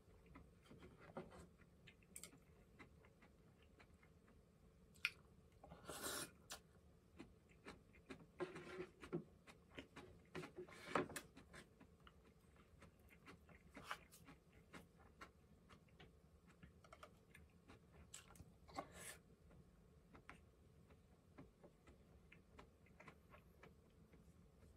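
Quiet eating sounds: scattered small clicks of chopsticks against bowls and dishes, with faint chewing and a few louder handling noises.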